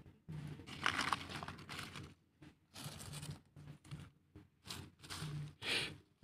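Dry fallen leaves rustling and crunching in irregular bursts, as the leaf litter is trodden on or pushed aside.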